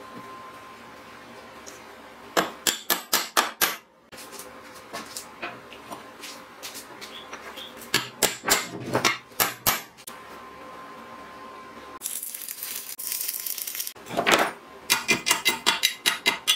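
Hammer tapping on steel: short bursts of quick, light metallic strikes, several a second, as round steel posts are knocked into position on a steel base plate. About twelve seconds in there is a steady hiss of about two seconds, then a loud knock and another run of rapid taps near the end.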